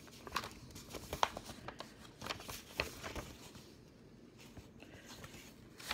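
Sheets of paper rustling and crinkling as a printed pattern leaflet is handled and leafed through: soft, scattered crinkles, a few sharper ones in the first half.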